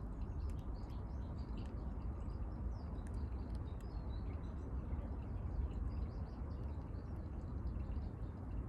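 Small birds chirping here and there over a steady low rumble, with a few faint light clicks.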